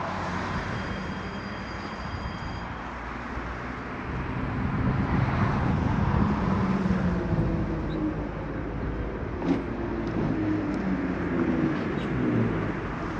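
Vintage K-type tram approaching and pulling in to a stop, its wheels and running gear rumbling on the rails and getting louder from about four seconds in, with a few sharp knocks near the end.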